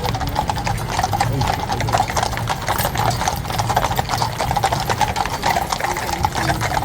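Hooves of a mounted ceremonial guard's horses clip-clopping on the road as the column passes: a dense, rapid patter of many hoofbeats.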